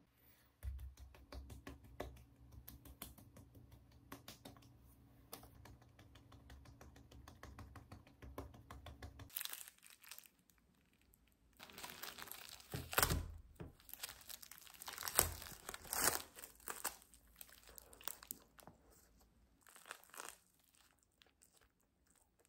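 Crinkling and tearing, loudest in bouts about halfway through. A low steady hum sits under the first nine seconds and cuts off suddenly.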